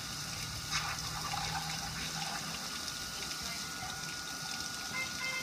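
Water spraying onto a metal gas grill, splashing and running off its lid in a steady hiss.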